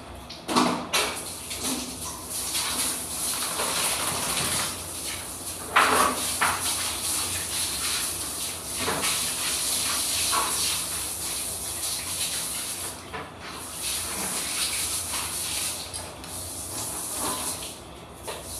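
Handheld bidet sprayer spraying a steady hissing jet of water. A few short knocks, the sharpest about half a second and about six seconds in.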